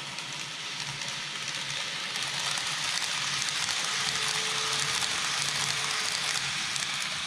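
N-gauge model trains running on layout track: a steady rolling hiss of small wheels on rail with a faint motor hum, growing louder as a train passes close. It cuts off suddenly at the end.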